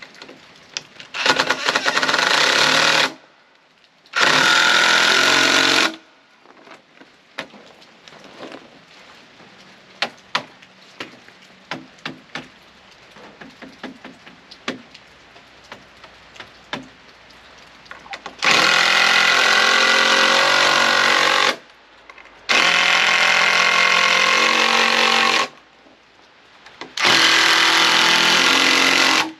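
Cordless impact driver driving screws into 2x4 lumber in five bursts of two to three seconds each: two in the first six seconds and three in the last eleven. Between the bursts come light clicks and knocks of wood and screws being handled.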